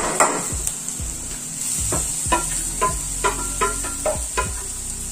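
A steel plate knocking against the rim of a steel kadai while a spatula scrapes grated paneer off it, giving a series of sharp metallic clinks that ring briefly, most of them from about two seconds in. Under it is a steady sizzle of onion masala frying in oil.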